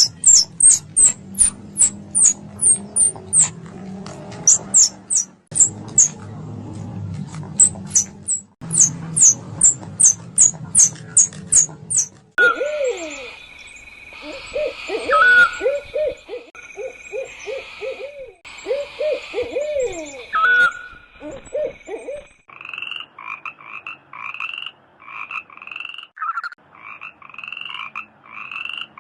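A run of animal calls in three spliced clips. First come rapid, high-pitched squeaks in quick series. About twelve seconds in, these give way to lower, bending calls over a steady hiss. Then, about ten seconds later, a regular series of short calls follows, roughly two a second.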